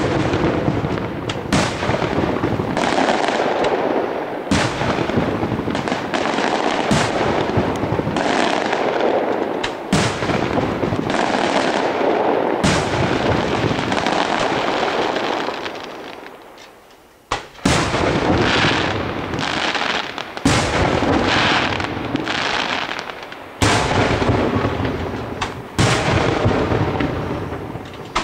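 Aerial firework shells bursting one after another: sharp bangs every second or so, each trailing off in a long echo, with a brief lull a little past halfway.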